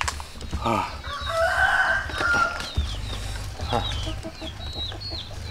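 A rooster crowing once, starting about a second in and lasting just over a second, with small birds giving short high chirps throughout.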